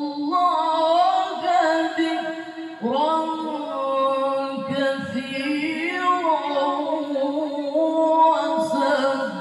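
A male qari reciting the Qur'an in melodic tilawah style into a microphone: long held high notes with ornamented runs, a new phrase beginning about three seconds in.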